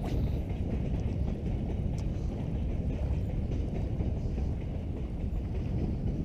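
Wind buffeting the camera's microphone: a steady low rumble.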